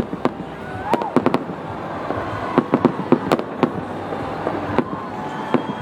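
Aerial fireworks show: an irregular run of sharp bangs and pops, several clustered close together, over a steady rumbling background.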